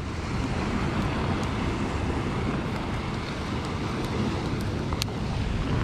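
Sea surf washing over and around rocks, mixed with wind buffeting the microphone as a steady rushing noise with a low rumble. A single sharp click comes near the end.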